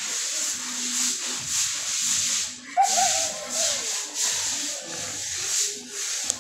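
Bristle brush scrubbing a wet, soapy concrete floor in quick repeated strokes, about two a second.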